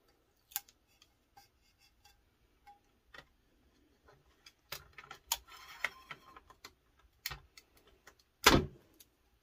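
Hands handling a paper-wrapped tumbler and heat tape on a table: scattered light clicks and taps, a short scratchy rasp about five seconds in, and one loud thump about eight and a half seconds in.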